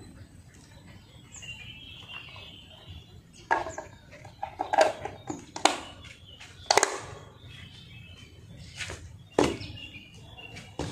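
Loose concrete blocks knocked and scraped against each other as they are shifted by hand, about six sharp knocks and short scrapes starting a few seconds in, with light chirping in the background.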